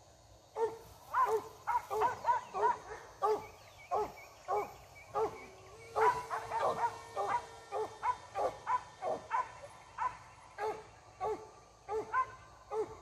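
A dog barking over and over, about two barks a second, without a break.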